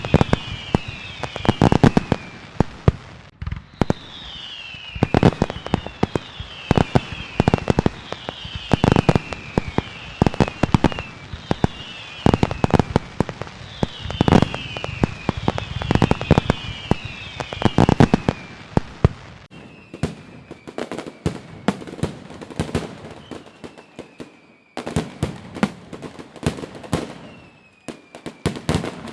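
Fireworks display: an irregular barrage of sharp bangs and crackles, overlaid by many short whistles that fall in pitch. About two-thirds of the way in the bangs thin out, leaving sparser bangs and a few longer falling whistles.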